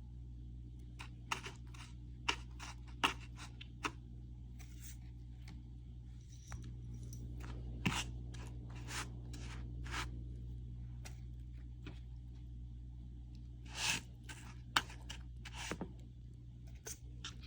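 Scattered sharp clicks and taps with some scraping and rustling from hands-on kitchen food preparation, over a steady low hum; a few louder knocks and a longer rustle about fourteen seconds in.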